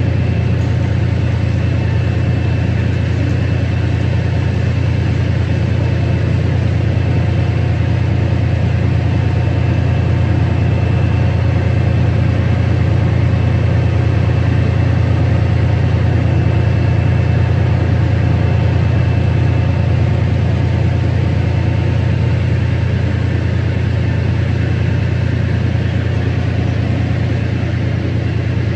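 Class 68 diesel locomotive's Caterpillar V16 engine idling steadily: a loud, even low rumble with faint steady tones above it.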